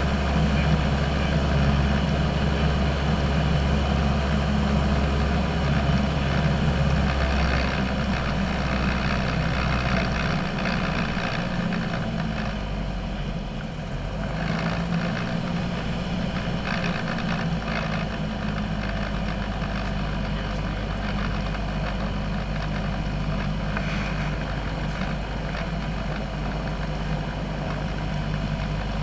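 Single-engine light aircraft's piston engine and propeller droning steadily, heard inside the cockpit. About halfway through, the engine note shifts and grows slightly quieter, then holds steady.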